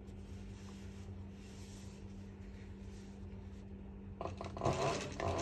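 Pfaff 195 triple-feed walking-foot industrial sewing machine standing by with a steady low hum while material rubs against it. About four seconds in, the machine starts stitching with a loud, fast, rhythmic running.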